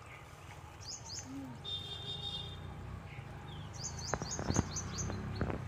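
A small bird chirping: a short call about a second in, then a quick run of about eight falling chirps about four seconds in. A few soft thuds of bare feet treading wet mud come near the end.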